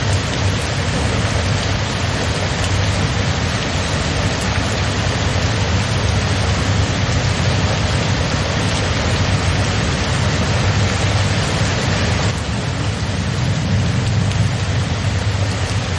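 Steady rain falling, a dense even hiss with a deep low rumble underneath; the sound turns slightly duller about twelve seconds in.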